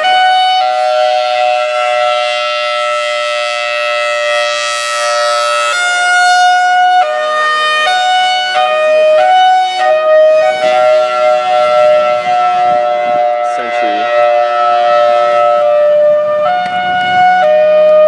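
Federal Signal Thunderbolt 1003 mechanical outdoor warning siren sounding its hi-lo signal. It holds a higher pitch for about five seconds, then alternates between a higher and a lower pitch every second or so.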